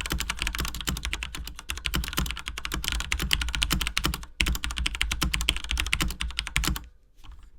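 Corsair Strafe mechanical keyboard with Cherry MX Red linear switches being typed on rapidly: a fast, dense run of key clacks, with a short break about four seconds in, stopping shortly before the end. The switches have no click at the actuation point, so the sound is the keys travelling smoothly and bottoming out.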